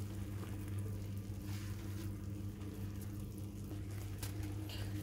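Chicken breast and champignon mushroom strips sizzling gently in a frying pan, with faint crackles over a steady low hum.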